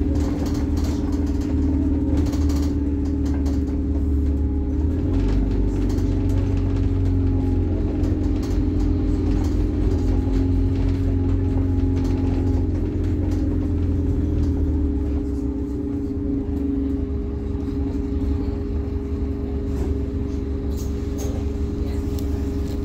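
Scania N270UD Omnicity double-decker bus's five-cylinder diesel engine running under way, heard inside the upper deck as a steady drone and rumble with scattered rattles. The engine rumble eases and the level drops a little about two-thirds of the way through, as the bus slows toward a stop.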